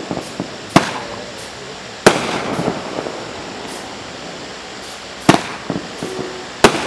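Blast Wave Night Wolf fireworks cake firing: four sharp bangs, with a long gap in the middle, and smaller pops and crackles between them.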